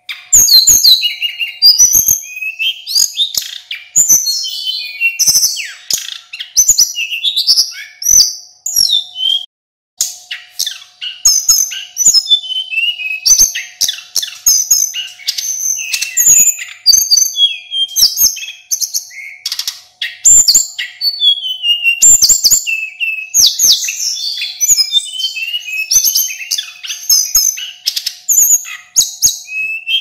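Male blue flycatcher (sulingan gunung) singing a long, fast, unbroken stream of varied, high, clear whistled phrases. The song breaks briefly about a third of the way in.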